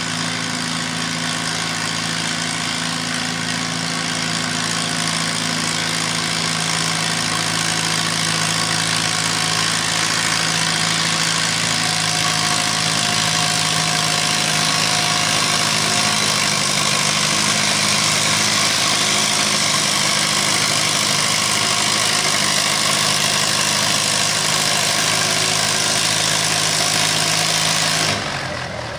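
Farmall tractor's engine running steadily at full throttle under heavy load, pulling a weight sled down the track. It grows slightly louder partway through, then falls away sharply near the end.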